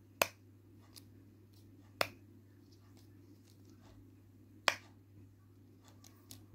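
Silicone pop-it bubbles in the arms of a fidget spinner being pressed by a thumb: three sharp pops a couple of seconds apart, with a few fainter clicks between.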